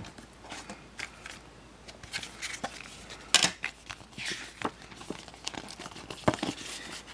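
Paper and thin card rustling and crinkling as a folded paper documentation packet is handled and opened, with irregular light clicks and scrapes; the loudest rustle comes a little before halfway.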